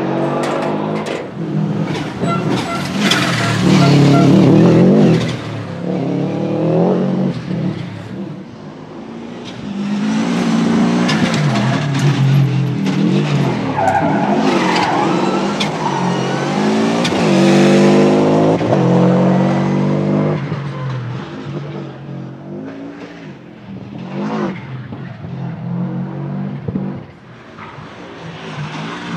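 Subaru Legacy RS Group A rally car's turbocharged flat-four boxer engine, driven hard past in several runs. Its pitch repeatedly climbs and drops as it revs and shifts, with sharp cracks between the sweeps.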